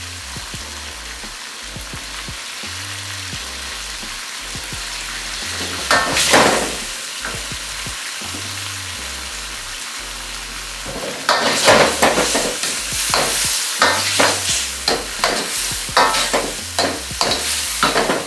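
Kebab pieces frying in tomato sauce in a karahi with a steady sizzle, swelling into a louder burst of sizzling about six seconds in. From about eleven seconds in, a spatula scrapes and knocks against the pan in quick, irregular strokes as the contents are stirred.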